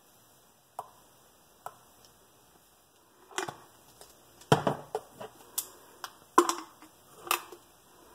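Plastic acrylic paint bottles being handled and set down on a table: a couple of light clicks, then from about halfway a run of sharper plastic knocks and clacks.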